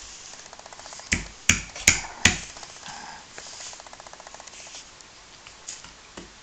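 Toy mallet knocking on a wooden peg-pounding toy, four sharp knocks within about a second, with a faint fast ticking underneath.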